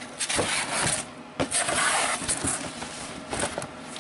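Cardboard shipping box being pulled open and handled: flaps and sides scraping and rustling, with a few knocks, loudest from about a second and a half in.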